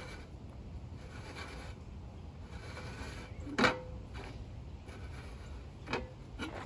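Faint rubbing and scraping of a marker being drawn around a corrugated steel can as it is handled. There is a sharp knock about three and a half seconds in and a lighter one near the end.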